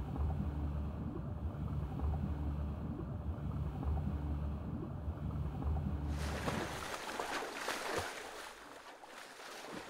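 Muffled underwater rumble for about six seconds, then a swimmer's strokes splashing at the surface, the splashing fading toward the end.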